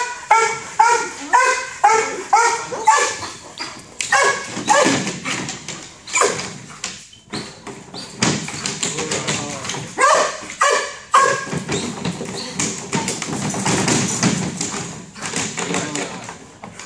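Police dog barking repeatedly, fast and regular at first at about two barks a second, then more irregularly.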